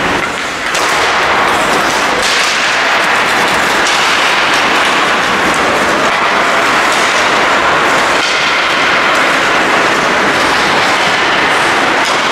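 Steady scraping hiss of ice hockey skates carving the rink surface during play, with a few faint sharper clicks.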